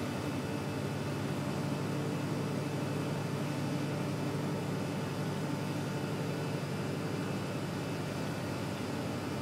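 Towboat's diesel engines running steadily under way while pushing loaded barges, a continuous even drone with a steady low hum, heard from inside the pilothouse.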